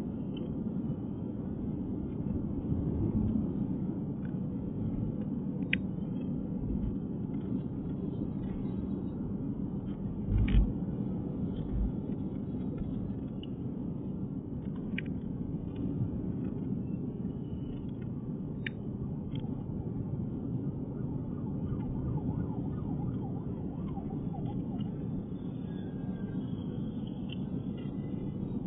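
Steady low rumble of a car driving at speed on a paved highway, tyre and engine noise, with a short thump about ten seconds in.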